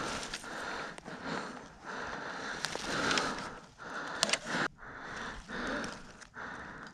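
A person breathing hard, noisy breaths coming about once a second, with a few sharp clicks just after four seconds in.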